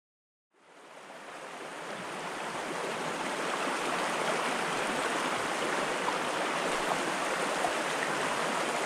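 Shallow, rocky creek running over stones: a steady rush of water that fades in about half a second in and builds over the next few seconds.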